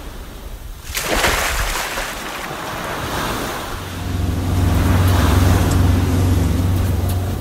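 Intro sound effects: waves and surf washing, with a surge of water about a second in, then a motorboat engine running steadily from about four seconds in.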